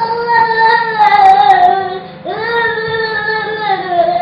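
A child singing long, held notes that drift slightly down in pitch; one note breaks off about two seconds in and another begins. A steady low hum runs underneath.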